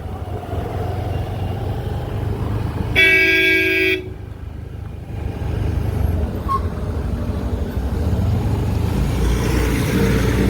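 Traffic and wind rumble heard from a moving scooter, with one vehicle horn blast lasting about a second, three seconds in.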